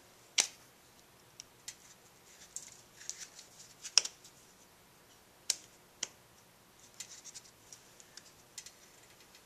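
Handling noise from a new cartridge oil filter and its metal insert being fitted together by hand: scattered sharp clicks, the clearest about half a second, four and five and a half seconds in, with light scratchy rustles between.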